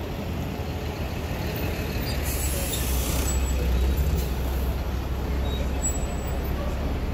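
City street traffic: a steady low rumble of vehicles. About two seconds in there is a brief hiss lasting about a second.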